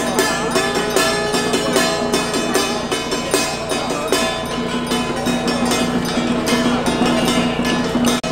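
Temple-procession music: metal percussion struck rapidly and continuously, over a steady ringing tone and a wavering melody line.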